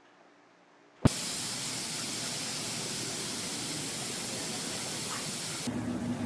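A steady, loud spraying hiss starts abruptly about a second in and runs for roughly five seconds. Near the end it gives way to the low hum of a car's engine.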